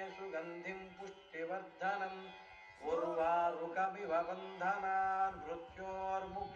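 Background music: a chant-like melody over a steady low drone.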